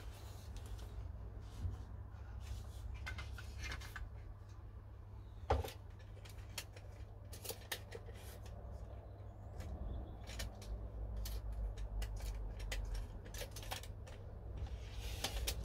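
Scattered light clicks and knocks from a Milwaukee cordless circular saw being handled while its blade depth is set, with one sharper knock about five and a half seconds in; the saw's motor is not running.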